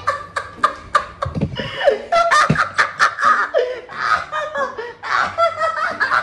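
Several people laughing hard in repeated bursts, with the odd spoken word among the laughter.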